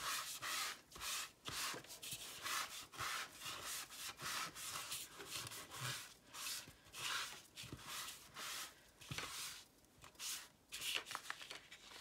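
Damp sponge wiped back and forth over a sheet of printing paper to wet it for printing: a steady run of soft rubbing strokes, about two a second, with a short pause about ten seconds in.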